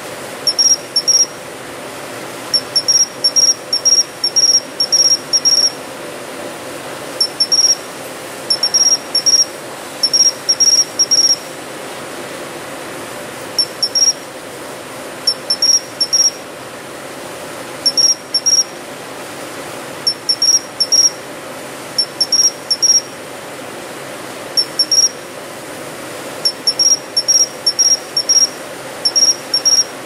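A matsumushi (pine cricket, Xenogryllus marmoratus) singing: short, high chirps in quick clusters of two to five, repeated every second or two with brief pauses, over a steady low background hum.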